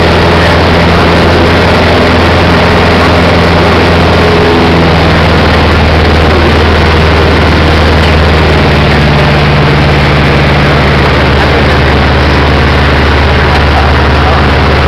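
Robin light aircraft's piston engine and propeller running steadily, heard from inside the cabin as a loud, even drone. The engine note shifts slightly about five seconds in.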